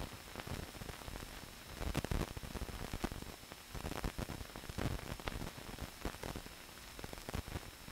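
Faint hiss and crackle of an old film soundtrack, with scattered clicks and pops and a faint thin high whine running under them.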